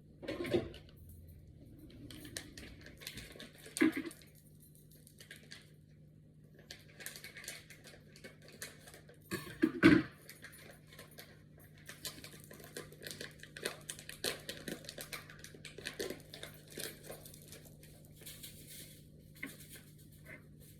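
Kitchen food-prep handling: dishes and containers knocked and set down on a counter, loudest about ten seconds in, with a long stretch of light scraping and rattling in between.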